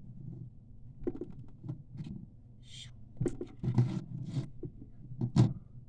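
Homemade slime being handled and squeezed by hand: irregular clicks and short squelching noises, with the loudest click a little after five seconds in.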